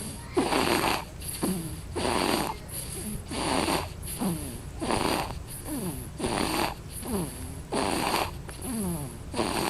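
A sleeping baby snoring: a quick run of noisy breaths, about three every two seconds. Several breaths carry a short squeaky tone that falls in pitch.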